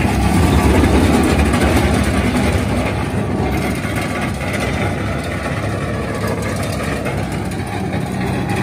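Tractor engine running steadily with a low hum, a little louder in the first couple of seconds and then settling.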